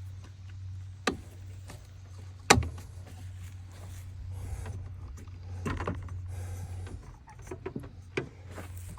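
Sharp metallic knocks and clatter of hands and tools working on a walk-behind mower's belt drive, the loudest knock about two and a half seconds in and scattered smaller clicks later, over a steady low hum.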